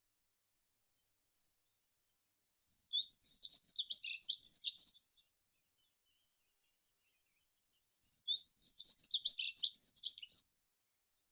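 A songbird singing two rapid, high-pitched warbling song phrases of about two and a half seconds each, the second about three seconds after the first ends, with silence between.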